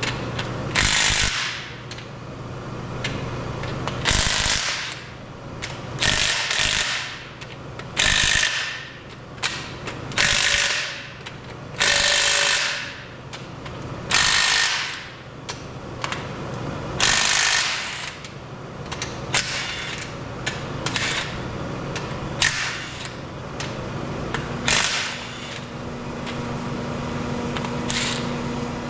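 Power wrench run in a dozen or so short bursts, roughly every two seconds, loosening the main bearing cap bolts on a Detroit Diesel 3-53 block.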